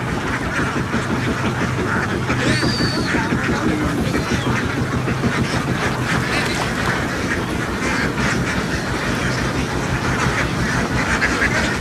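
A large flock of domestic ducks quacking together in a dense, continuous chorus, with an engine running steadily underneath.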